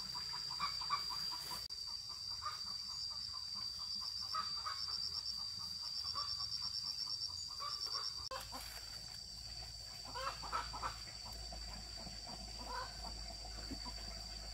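Chickens clucking over a steady high drone of insects, with fast insect trills above it. About eight seconds in, the background changes abruptly and only a few scattered calls are left.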